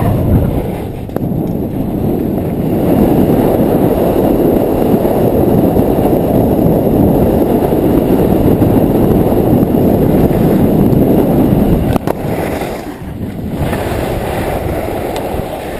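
Wind buffeting a skier's camera microphone, a loud, steady rumble mixed with the scrape of skis on packed snow. It dips briefly about twelve seconds in, then carries on a little softer.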